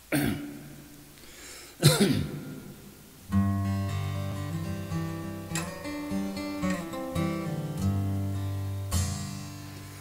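Acoustic guitar played solo: two strummed chords about two seconds apart, then from about three seconds in a picked passage of ringing, sustained notes.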